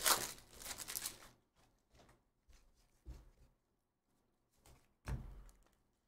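Foil trading-card pack wrapper crinkling as it is pulled off the stack of cards, then the cards slid and flipped through by hand, with soft rustles and a sharper one about five seconds in.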